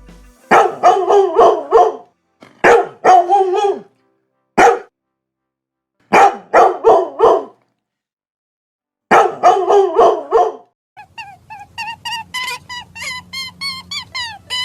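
A dog barking loudly in quick runs of three to five barks, separated by short pauses, with one lone bark in the middle. Near the end the barking stops and a fast series of short high notes begins.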